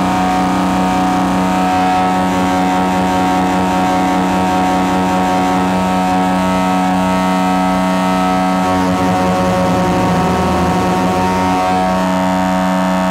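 Metasonix Wretch Machine vacuum-tube synthesizer playing a loud distorted drone through a spring reverb: a dense stack of held tones with a strong low hum, its texture wavering and shifting about two-thirds of the way through as the knobs are turned.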